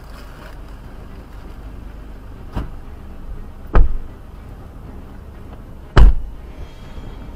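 Three sharp thumps over a steady low rumble; the second and third, about two seconds apart, are much the loudest.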